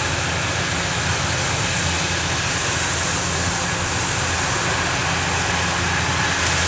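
Kubota DC-105X combine harvester's diesel engine running steadily under load as it cuts and threshes rice, a continuous low drone with a faint steady high whine over it.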